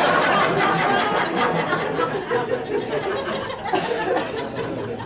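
Audience laughing at a joke, the laughter fading away toward the end.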